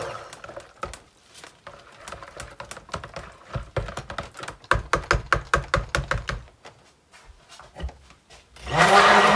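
A stick blender's motor whine falls away at the start. Then comes a run of quick clicks and light knocks as the blender head is worked around in a plastic pitcher of soap batter. Near the end the stick blender starts up again, its whine rising quickly and then running steadily.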